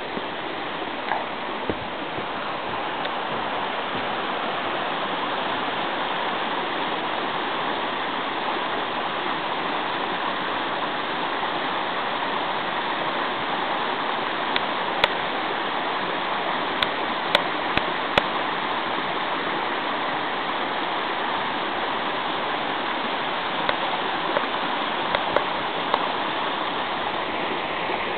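Steady rush of running stream water, with a few short faint clicks around the middle and again near the end.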